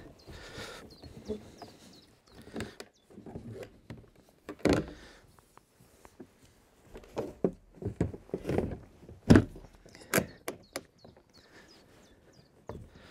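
Hollow plastic sections of a modular kayak hull being handled and joined together: irregular knocks and thuds, the loudest about five seconds in and twice more near nine and ten seconds.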